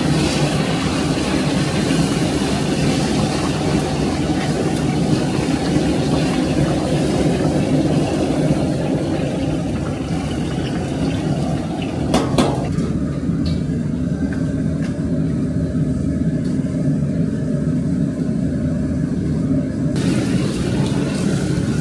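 A steady, loud, low mechanical roar with no pitch to it. About halfway through there is a short clank, after which the higher hiss drops away until near the end.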